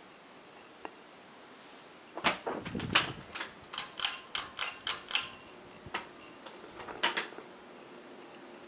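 A run of sharp, irregular clicks and rattles beginning about two seconds in and lasting about three seconds, with another couple of clicks near seven seconds, over a faint steady hiss.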